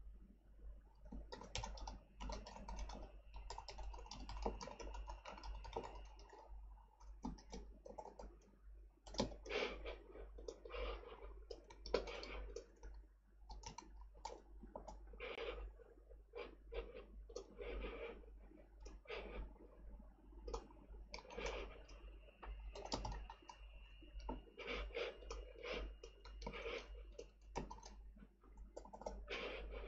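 Typing on a computer keyboard: irregular runs of keystrokes with short pauses between, over a low steady hum.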